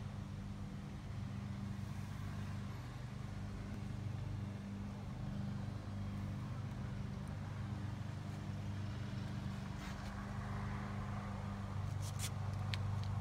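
A steady low mechanical hum runs throughout, with a few light clicks near the end.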